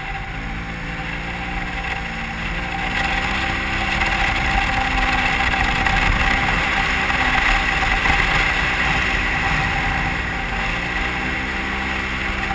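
Polaris RZR XP 1000 side-by-side's twin-cylinder engine under throttle on sand, heard from inside the open cab with wind noise. The engine pitch rises over the first couple of seconds, holds, dips briefly about ten seconds in, then climbs again.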